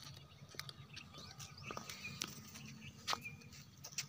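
Faint footsteps crunching now and then on a dirt path scattered with dry stalks, with a few brief bird chirps.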